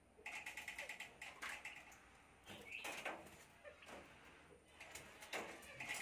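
Common myna calling: a quick rattling run of notes just after the start, a short rising-and-falling note around the middle, and another rattling run near the end.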